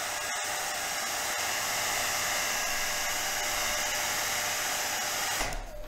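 Hot-air blower running steadily with an even blowing hiss, warming the adhesive under an iPad Air's glass digitizer to loosen it; it switches off near the end.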